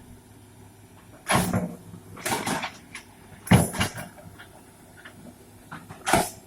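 Excavator working its way up a steep bank: a faint steady engine drone under loud, irregular metal clanks and knocks, four of them spread a second or more apart.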